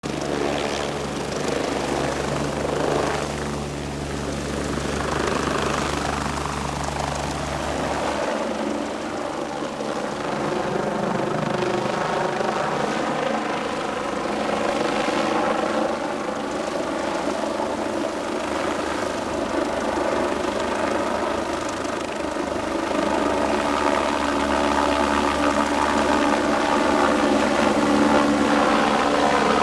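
Helicopter running steadily, its rotor drone holding an even pitch throughout, as it lifts HVAC units into place.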